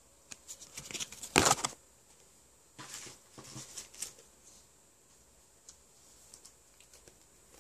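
Pokémon trading cards being handled and a card slipped into a plastic sleeve: soft rustles and light clicks, with one louder brief rustle about one and a half seconds in and more rustling around three to four seconds, then only faint ticks.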